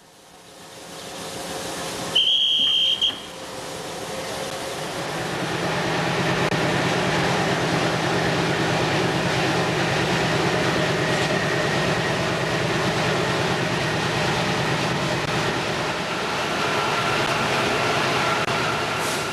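A shrill whistle blows once for about a second, the signal for departure. Then the MLW diesel-electric locomotive's engine throttles up and runs under load with a steady rhythmic throb as the train pulls away, heard close beside the locomotive.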